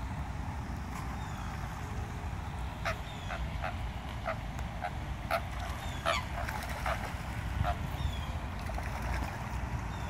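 Waterfowl calling with short, separate honks, about a dozen of them, starting about three seconds in, over a steady low rumble.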